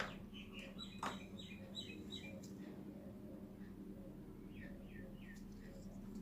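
Faint chirping of small birds in two short runs, the first through the opening couple of seconds and the second around five seconds in, over a steady low hum. Light clicks at the start and about a second in.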